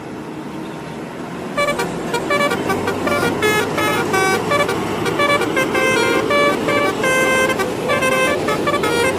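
Bus telolet horn, a set of electric air horns, playing a quick tune of short, stepping notes over the bus's engine and road noise. The tune starts about a second and a half in.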